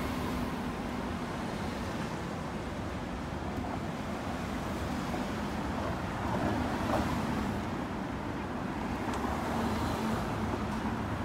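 Street traffic: cars and taxis driving past close by on a sloping road, a steady rumble of engines and tyres, with one vehicle passing a little louder about six or seven seconds in.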